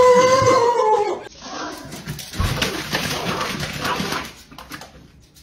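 A dog's long, steady, high whining howl that cuts off suddenly about a second in, followed by a few seconds of scuffling noise.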